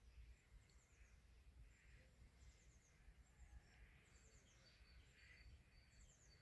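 Near silence with faint, high bird chirps repeating about once a second, and a thin high whistle joining in the second half, over a low rumble.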